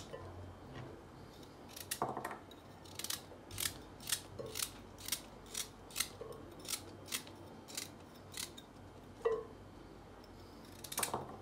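Kitchen knife slicing through raw carrot and leek held in the hand: a run of crisp cutting crunches, about two a second, pausing briefly before a few more near the end.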